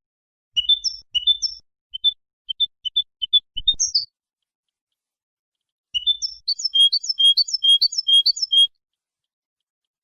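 European goldfinch singing: short twittering chirp phrases through the first four seconds, then, from about six seconds in, a faster run of evenly repeated notes, about five a second, that stops near nine seconds.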